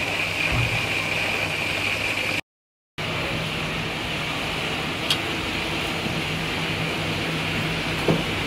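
Skewered squid deep-frying in a wok of hot oil, a steady sizzle that cuts off abruptly about two and a half seconds in. After a brief dropout a steady hiss with a low hum runs on, with a couple of small clicks.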